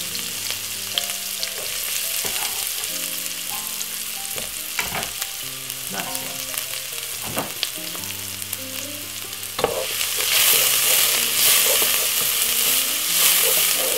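Chopped white onion, garlic and ginger sizzling in hot oil in a pot, with occasional pops. About ten seconds in the sizzle gets louder as a wooden spoon stirs them.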